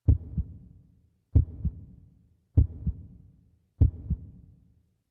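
Heartbeat sound effect: four low lub-dub double thumps, about one every second and a quarter, each fading away.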